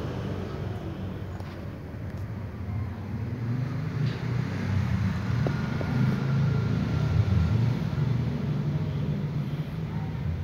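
Steady low rumble of outdoor urban background noise, growing louder through the middle and easing near the end.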